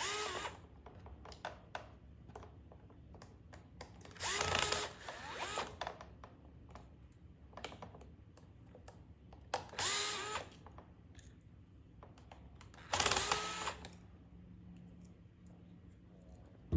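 Cordless powered screwdriver backing out the screws of a pressure washer's pressure switch box, in three short runs of about a second each, its motor pitch rising and falling with each run. Small clicks of screws and parts being handled come between the runs.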